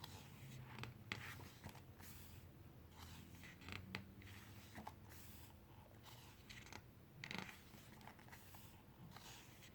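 Quiet handling of a photobook's pages: faint paper rustles and small soft taps scattered through the stretch, the clearest about four seconds in and again near seven seconds.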